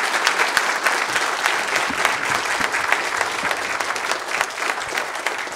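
A church congregation applauding: many hands clapping in a dense, continuous patter that eases slightly toward the end.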